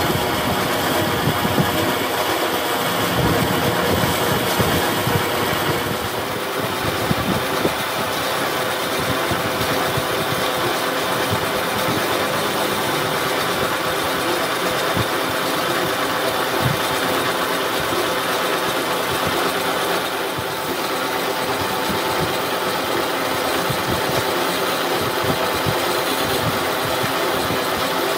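Metal lathe running steadily while a boring tool cuts the inside of a spinning steel tube: a continuous machine hum with the noise of the cut.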